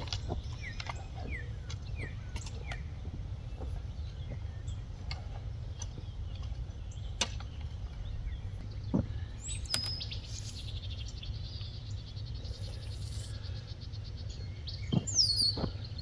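Birds chirping outdoors over a steady low rumble: a few short chirps in the first seconds, a higher call and a fast ticking trill midway, and scattered faint clicks.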